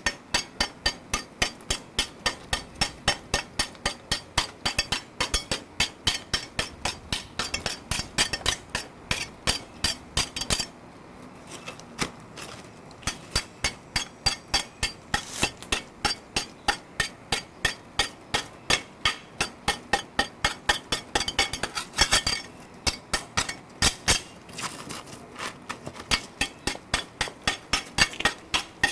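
Steady metallic tapping and chinking, about three sharp strikes a second with a short pause about eleven seconds in: a hand tool chipping old mortar off salvaged bricks to clean them for a fresh seal.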